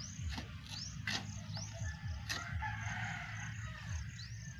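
A rooster crowing, one long call that starts about halfway in and falls slightly as it goes, with short high chirps and a few sharp clicks earlier on.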